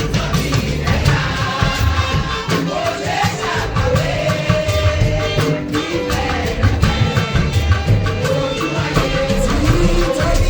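Upbeat music with a singing voice over a heavy bass.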